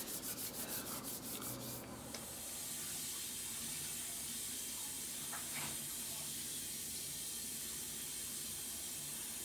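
A quick run of rubbing or scratching ticks, about seven or eight a second, for the first two seconds, then a steady hiss of background noise.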